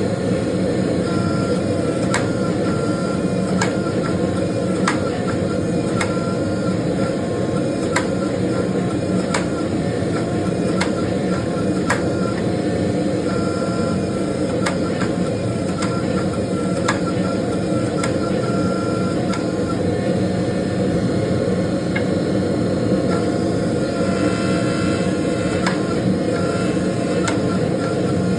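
Forging equipment running steadily while a billet is forge welded under a 12-ton hydraulic press: a loud even drone with a sharp tick about every second and a quarter.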